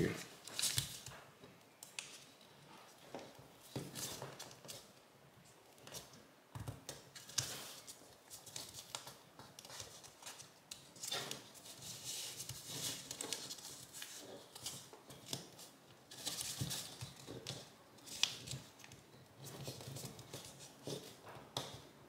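Green origami paper being folded and creased by hand: irregular soft rustles and short crackles as the folds are pressed down.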